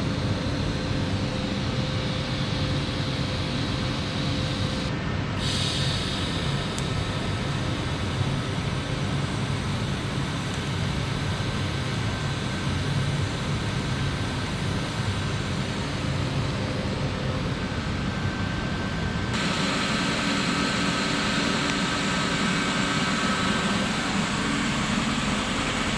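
Steady buzzing hum and hiss of TIG welding in a metal shop, with the electric arc and welding machines running. The hiss changes sharply twice, about 5 seconds in and again about 19 seconds in, where it grows stronger and brighter.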